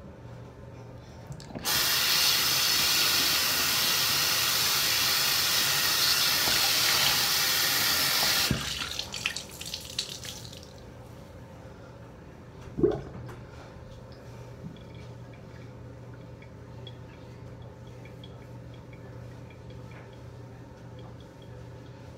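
Bathroom sink faucet running, water splashing into the basin, for about seven seconds, then turned off, the flow trailing away over a couple of seconds. A single short, sharp sound comes a little past the middle.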